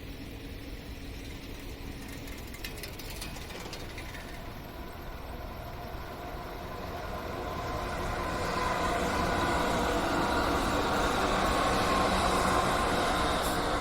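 A train approaching, its running noise growing steadily louder from about seven seconds in, with a thin steady high tone over the rumble.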